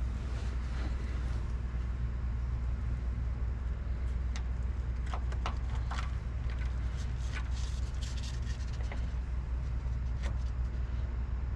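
A steady low hum runs throughout, with a scattered run of sharp clicks and taps from about four to ten seconds in. The taps come from a part being worked onto the crankshaft nose of the engine during a timing chain replacement.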